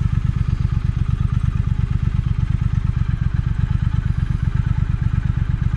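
Triumph Thruxton 1200 parallel-twin engine running at a steady, even pulsing beat, through its stock exhaust with the catalytic converter still fitted.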